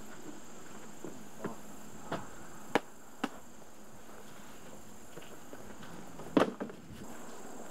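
A few sharp, scattered knocks and clicks, the loudest about six and a half seconds in, over a steady thin high hum of outdoor ambience.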